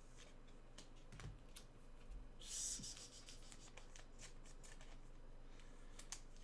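Trading cards being handled: faint scattered clicks and taps, with a brief rustling slide of cards about two and a half seconds in.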